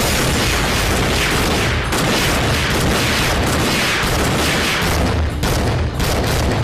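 Continuous loud gunfire and blasts from a drama's action-scene soundtrack, with a run of distinct sharp shots about five to six and a half seconds in.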